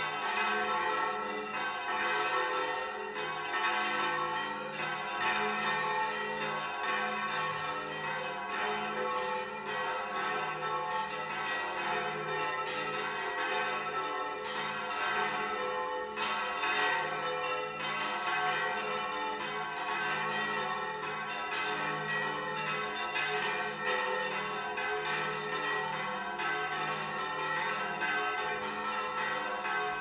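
Church tower bells ringing in a continuous peal, with many strikes overlapping and their tones ringing on together.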